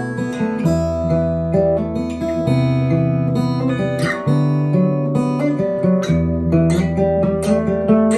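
Acoustic guitar intro of a song, chords strummed and plucked over a steady bass line, played back through Harbeth P3ESR bookshelf loudspeakers driven by a valve integrated amplifier.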